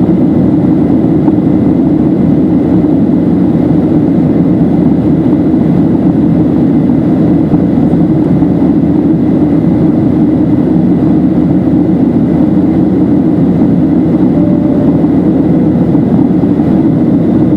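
Steady cabin noise inside a Boeing 737-700 in flight: an even, loud rush of airflow and CFM56 engine noise, with a faint steady high tone above it.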